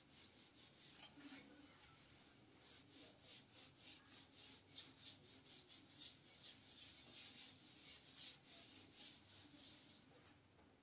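Faint, repeated rubbing strokes of a hand wiping a marker-written whiteboard clean, a few strokes a second.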